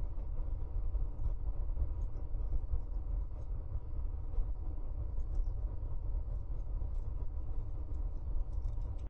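Steady low rumble on a nest-box webcam microphone, with a faint steady hum and scattered faint ticks. No falcon calls.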